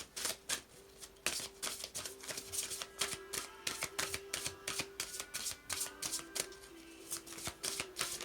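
A deck of mudra cards being shuffled by hand: a quick, uneven run of soft card snaps and slides, several a second, over faint steady background music.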